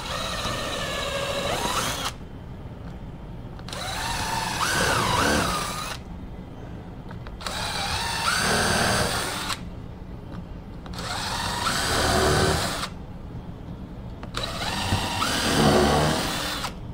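Cordless drill boring pilot holes through wooden fence pickets: five runs of about two seconds each, the motor pitch rising and wavering as the bit cuts, with short pauses between holes.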